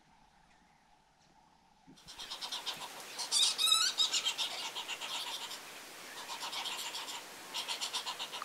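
Very quiet at first, with only a faint steady hum. About two seconds in, dense bird calls start: rapid high chirps and trills, with one louder trill a little later.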